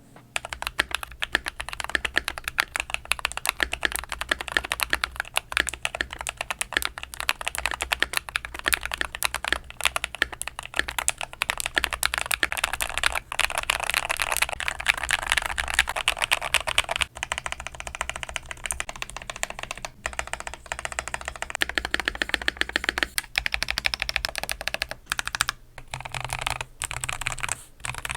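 Continuous typing on a modded Keychron K10 Pro mechanical keyboard fitted with Glorious Panda and Durock T1 tactile switches over two layers of tape: a dense, fast run of key clacks with a few short pauses in the second half.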